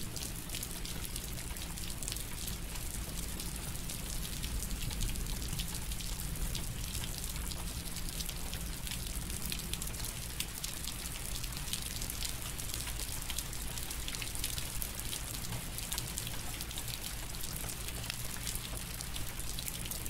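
Rain falling steadily, a dense patter of drops, over a steady low hum.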